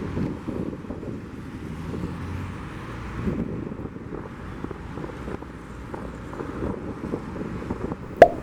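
Low, steady rumble of an Airbus A320's jet engines, mixed with wind buffeting the microphone. A single sharp click near the end.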